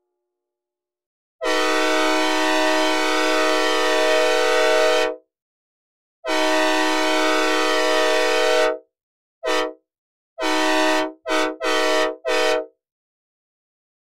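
Synthesized recreation of a Nathan K5LAB locomotive air horn, a five-chime chord played dry without reverb. It sounds two long blasts, a short one, then a longer blast broken into quick repeated blasts.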